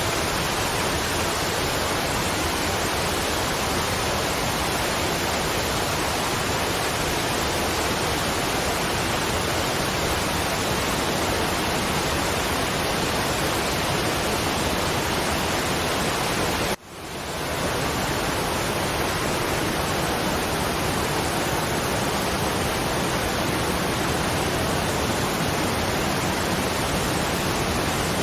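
Waterfall rushing in a steady, even roar of falling water. About seventeen seconds in it cuts out for an instant and fades back up.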